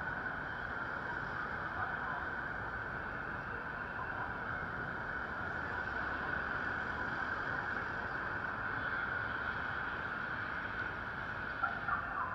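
Steady traffic noise at a busy city intersection: cars, vans and taxis driving through with a constant street hum. Near the end a few short, sharper sounds break in over it.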